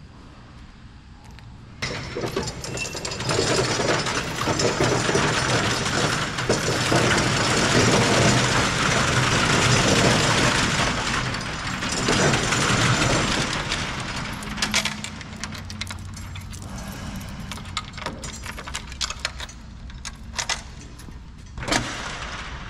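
Metal roll-up shutter door rattling as it is worked, starting suddenly about two seconds in and loudest for about ten seconds, then lighter clanks and a sharp click near the end.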